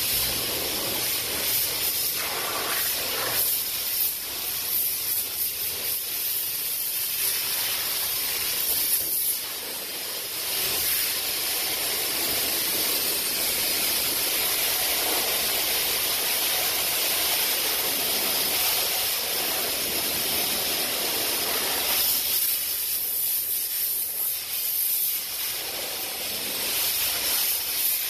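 High-pressure spray wand of a self-serve car wash jetting water onto a car's roof: a steady hiss of water spray that changes in tone now and then as the jet moves.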